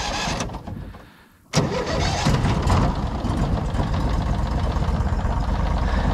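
An engine starts up about a second and a half in, after a short lull, and settles into a steady idle.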